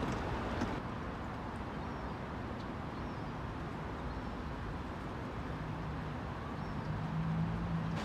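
Steady outdoor background noise, a low rumble with no clear single source, joined by a faint steady low hum over the last couple of seconds.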